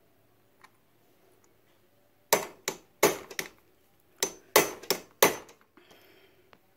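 Hammer blows on a flat screwdriver held as a chisel against a rivet pin of a motorcycle drive chain, metal striking metal. Two bursts of about four or five sharp strikes each, starting a little over two seconds in. The pin is being chiselled out to cut the chain, which has stretched slack with its adjusters at their limit.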